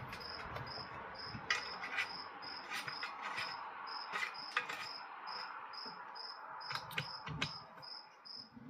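A cricket chirping steadily, about three chirps a second at one high pitch, with scattered light clicks and knocks of hand work on small parts.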